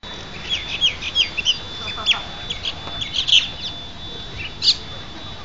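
Birds fighting, giving many short chirping calls that sweep downward in pitch, in loose clusters, with a thin steady high tone underneath.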